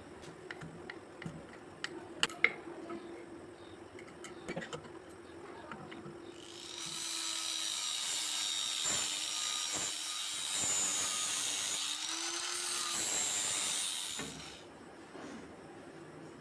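Electric power tool running steadily, with a few clicks of handling in the first few seconds. Then steel is pressed against it for about eight seconds, giving a loud grinding hiss while the motor slows slightly under the load, before the hiss stops.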